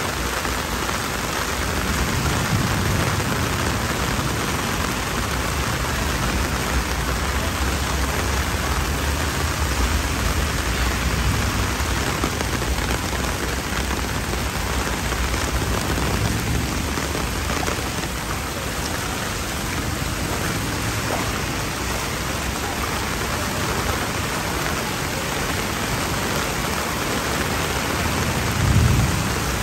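Torrential rain pouring onto pavement and a flooded road, a dense, steady hiss. A brief louder low rush comes near the end.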